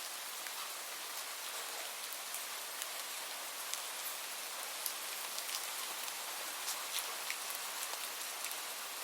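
Light rain falling steadily: an even hiss with scattered separate drops ticking.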